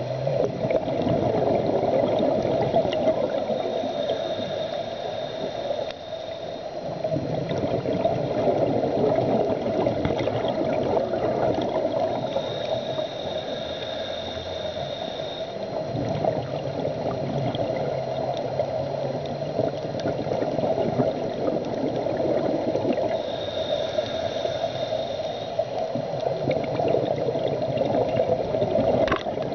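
Underwater sound picked up by a camera in its dive housing: a steady muffled rush of water with bubbling, as from scuba regulator exhaust bubbles. A thin high hiss comes in for a couple of seconds about every ten seconds, and there is a single sharp click near the end.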